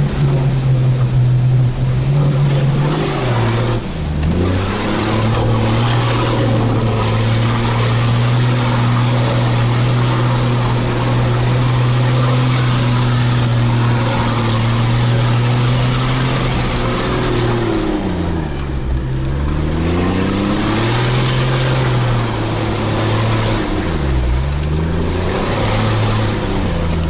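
Toyota Land Cruiser 80's engine pulling at steady low revs while crawling through a boggy forest rut. The engine note dips and climbs back a few times, most clearly past the middle and again near the end, as the throttle is eased off and reapplied.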